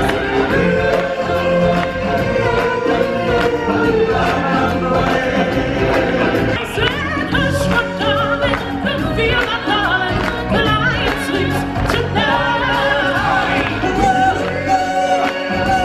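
Live stage-show music: an ensemble of singers in full choir-like voice over musical accompaniment, continuous and loud.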